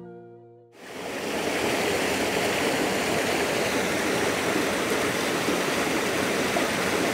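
River water rushing over boulders in a small rocky cascade, a steady rush that sets in about a second in, just after a guitar chord dies away.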